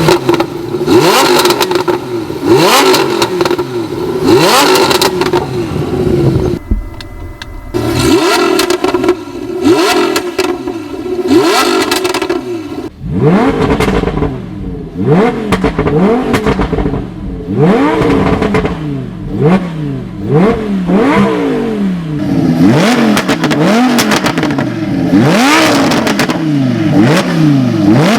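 Lamborghini Huracan LP610-4's V10 revved through an Armytrix titanium exhaust: rising and falling revs, held steady at higher revs for several seconds about a third of the way in, then blipped quickly over and over, with crackles and pops as the revs drop.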